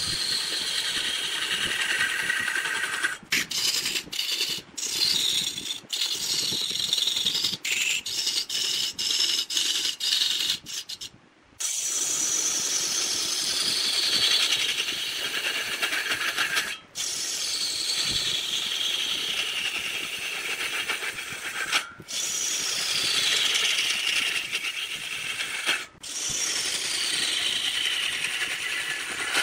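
Wood lathe turning a large workpiece while a hand tool cuts and scrapes the spinning wood. Over the steady scraping a high whine slides downward in pitch over a few seconds and starts again several times, and the sound cuts out abruptly for an instant now and then.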